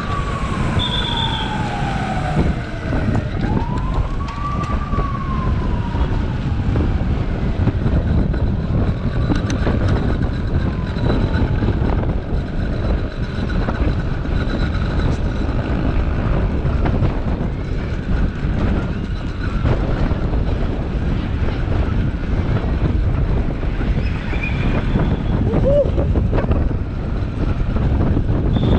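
A wailing siren, its pitch rising and falling slowly about every three to four seconds, fading away after the first ten seconds or so, over a constant rough rumble like wind on the microphone.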